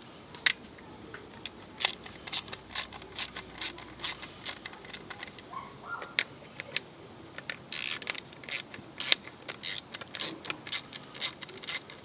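Ratchet wrench with a six millimetre socket clicking in short irregular runs while small screws are backed out of a window switch housing, with some light scraping of plastic.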